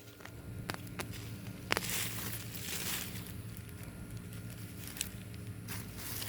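Hands digging and rummaging through potting soil in a plastic garbage bag: irregular rustling and crinkling, with a few sharp clicks and a louder stretch of rustling about two seconds in.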